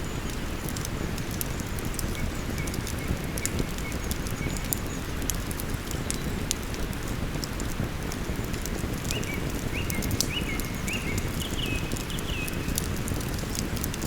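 Wood campfire crackling with frequent sharp pops over the steady rush of flowing river water. A bird calls in a series of short, quick notes about two seconds in and again from about nine seconds.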